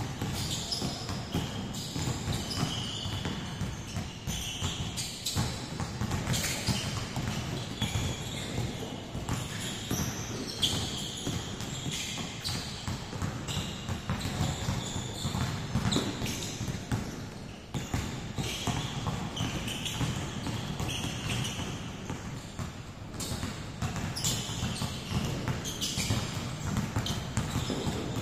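Many basketballs dribbled at once on a hardwood gym floor, a dense, continuous patter of overlapping bounces echoing in a large hall, with short high squeaks here and there.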